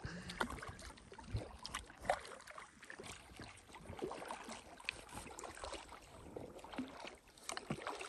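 Double-bladed paddles dipping into calm lake water from inflatable packrafts: faint, irregular small splashes and drips, with light knocks against the rafts.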